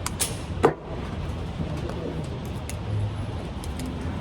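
A single handgun shot about two-thirds of a second in, sharp and loud, over a steady low rumble of background noise.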